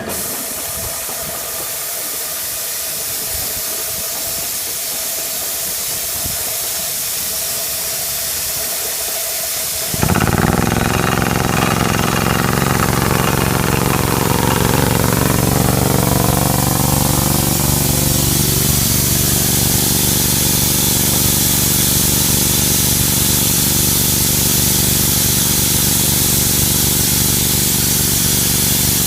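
MK5 drilling machine running: a steady loud hiss, then about ten seconds in it turns louder as a steady engine-like hum joins the hiss and carries on.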